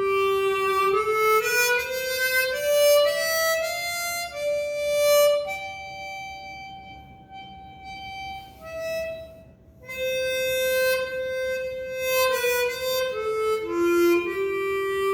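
Hohner 270 Super 12-hole wooden-combed chromatic harmonica, airtightened and fitted with a Kettlewell Frictionless Mouthpiece Slider, played as a slow single-note melody. The notes climb step by step, settle into long held tones, break off briefly about nine seconds in, then resume and step down near the end.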